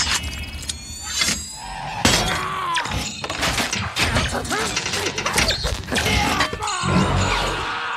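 Film sound effects of a mechanical metal gauntlet at work: its claws unfolding, a wire hook firing into metal, and blade-on-metal stabbing with sparks. They come as a dense run of sharp metallic clanks, snaps and crunches over film score.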